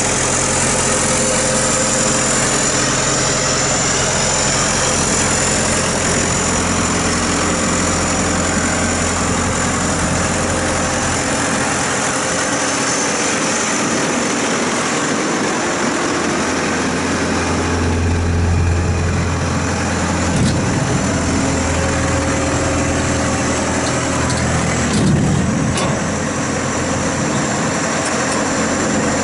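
Cummins turbo diesel engine of a bankout wagon running steadily near idle, with a thin high whine over it. The engine note shifts a few times, most around two-thirds of the way in.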